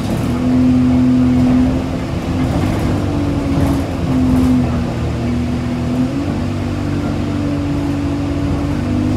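Engine and road noise of a moving road vehicle heard from inside it, a steady rumble with an engine hum that shifts up and down in pitch as the vehicle changes speed.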